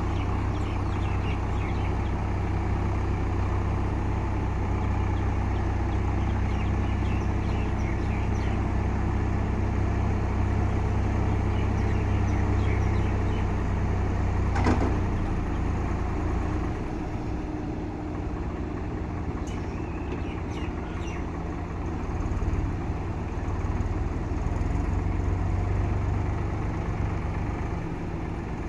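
Diesel engine of a JCB 3DX backhoe loader running steadily under working load. About halfway through comes a single sharp knock, after which the engine settles lower for several seconds before picking up again.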